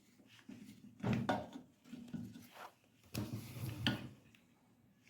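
Handling noises inside a microwave oven: a few short bursts of light knocks, clicks and rubbing as wire connectors are pushed back onto their terminals during reassembly.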